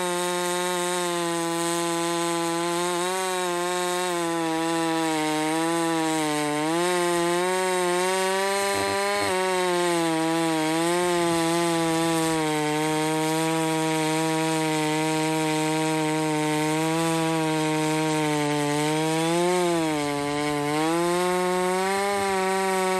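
Stihl MS660 chainsaw's single-cylinder two-stroke engine running at high revs on its test run after a top-end rebuild with new piston rings. It holds a steady high pitch with a few brief dips and wobbles.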